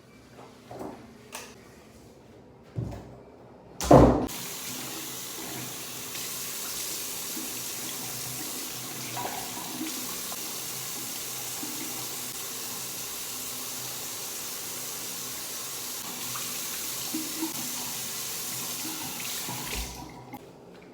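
Water running from a tap into a sink for about sixteen seconds, ending near the end, after a few light clicks and a loud knock just before the water comes on. A few small knocks sound while the water runs.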